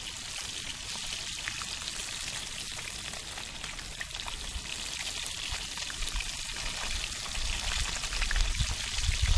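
Fish frying in a pan of bubbling oil: a steady crackling sizzle. A low rumble builds near the end.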